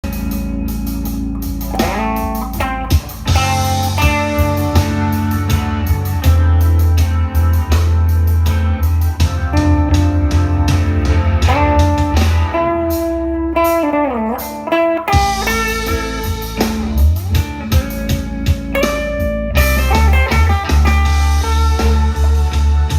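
Gibson Les Paul electric guitar through a Marshall DSL2000 amplifier, playing improvised blues-style lead lines: single held notes and string bends, with a clear bend down and back up about two-thirds of the way through.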